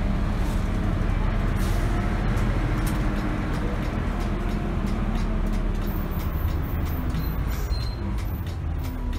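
Interior of a city bus on the move: steady low engine and road rumble in the cabin, with faint shifting engine tones and a few small rattles.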